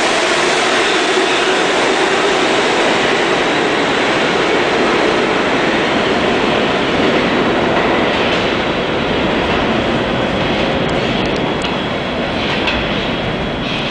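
New York City subway A train pulling out of an underground station and running away into the tunnel: a steady rumble of wheels on rail that eases off a little in the second half, with a few clicks and a brief thin wheel squeal near the end.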